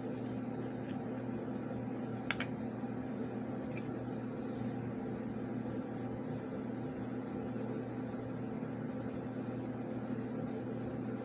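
A steady low machine hum with a few small, sharp clicks, the loudest about two seconds in.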